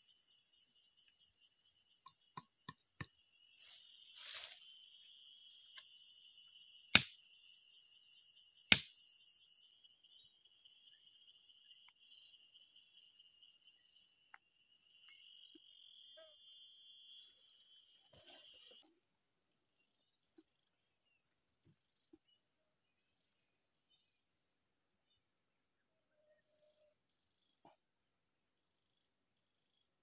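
A steady, high-pitched chorus of insects trilling, with two sharp knocks about a second and a half apart near the middle and scattered faint ticks from handling the bamboo and string.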